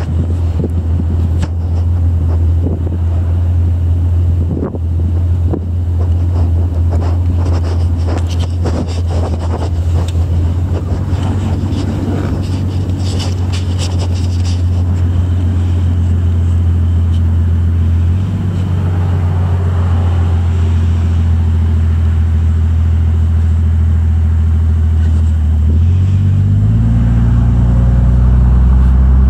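1962 Chevy II convertible driving with the top down: steady engine and road noise, with wind buffeting the microphone through the first half. Near the end the engine note rises as the car speeds up.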